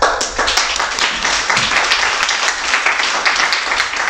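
Audience applause: many people clapping. It starts suddenly and keeps going.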